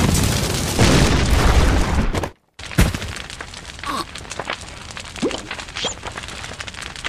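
Cartoon fiery-blast sound effect: a loud rushing rumble that cuts off to a moment of silence about two seconds in, followed by a single heavy thud. After that it is quieter, with a few short sliding squeaks and light ticks.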